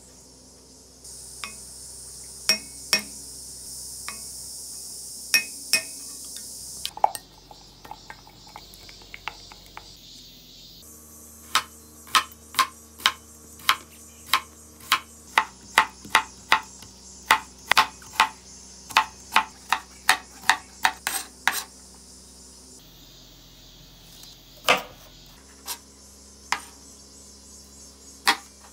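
A chef's knife slicing cucumber on a cutting board: about two dozen quick, even chops, roughly three a second. Before them come a few light clinks of a wooden spoon on a glass measuring cup, and near the end a few slower single cuts through cherry tomatoes.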